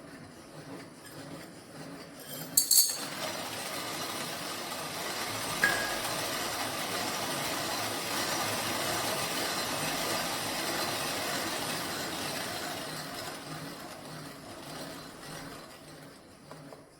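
Antique cast coffee mill grinding, a steady gritty rattle with metallic clinks. A couple of sharp clinks come about two and a half seconds in, then the grinding runs on and eases off near the end.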